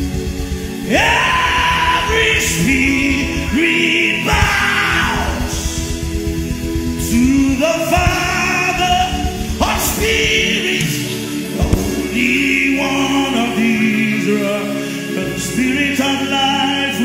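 Gospel song: a voice sings long, gliding held notes over an instrumental backing.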